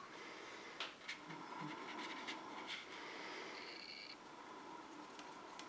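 Faint small clicks and light scratching from a paintbrush being worked in paint on a palette, over quiet room tone.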